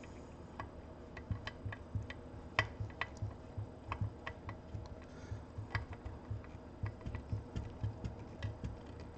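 Screws being driven in to clamp a car amplifier's power FETs down to the heat sink: a run of small, irregular metallic clicks and ticks, two or three a second.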